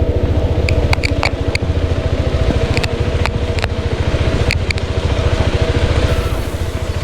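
Motorcycle engine running steadily under way, likely the rider's single-cylinder KTM 390 Adventure, with scattered clicks and knocks from riding over a rough road.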